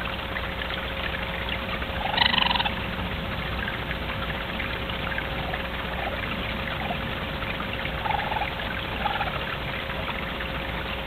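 Raccoons calling to each other with short trilling chitters over a steady background hiss: one louder call about two seconds in, then several softer ones later.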